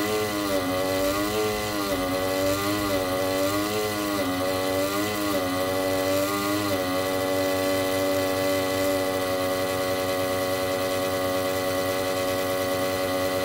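Broken PC cooling fan running with a droning buzz. Its pitch wobbles up and down for about the first seven seconds, then settles and holds steady, with a thin steady high whine above it.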